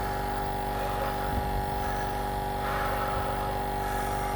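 Nebulizer air compressor running, a steady electric hum with several fixed tones.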